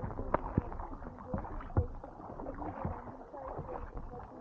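Tandem sea kayak paddled through brash ice: paddle blades dipping and water gurgling along the hull, with scattered small clicks and knocks.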